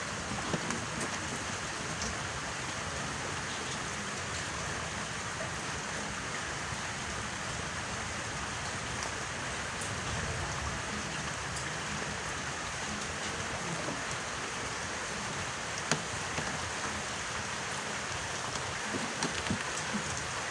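Steady rain falling: an even hiss of drops on water and the ground, with one sharp click late on.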